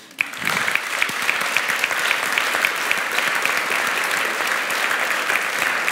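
Audience applauding: many hands clapping, starting just after the start and holding steady.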